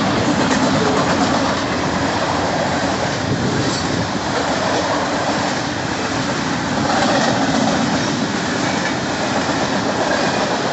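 BNSF local freight train's cars rolling past at close range: a steady, loud noise of steel wheels on the rails.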